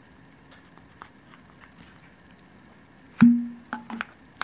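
Star diagonal's metal barrel binding and working loose in the Lunt 40mm helical focuser: faint handling ticks, then about three seconds in a sharp pop with a short ringing tone, followed by a few lighter clicks. The owner blames the tightness on a retaining ring inside the focuser that sticks out and catches the diagonal.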